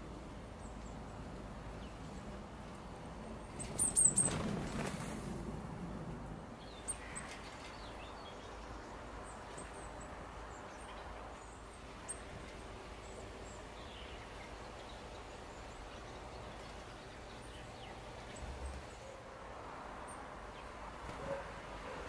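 Small garden birds giving scattered short, thin, high chirps over steady outdoor background noise, with a louder cluster of high calls and a brief whoosh about four seconds in.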